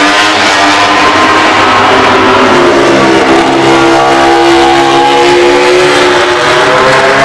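MotoGP racing motorcycle engine running at high revs. Its pitch climbs over the first two seconds, then holds steady and rises slightly again near the end.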